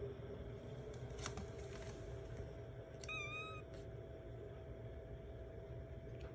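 A British Shorthair kitten gives one short, high meow about three seconds in, rising slightly in pitch.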